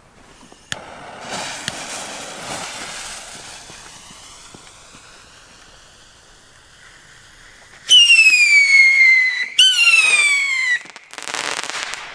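Rolling Thunder Sky Scream whistle rockets: a sharp pop and fading crackle early on, then two loud, shrill whistles, each gliding down in pitch for a second or two. About a second later comes a dense burst of crackling, the crackle the rocket ends with.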